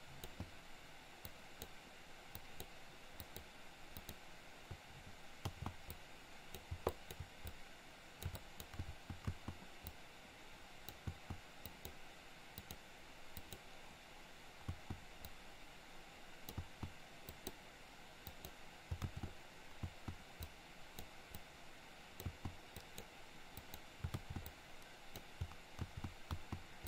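Faint, irregular clicks and soft taps of a computer keyboard and mouse at a desk, over a low steady hiss.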